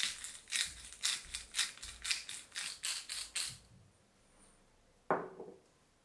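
Pepper grinder being twisted over a glass bowl: a rhythmic run of gritty crunches, about two a second, that stops about three and a half seconds in. Near the end comes one short scrape of the wooden spatula in the glass mixing bowl.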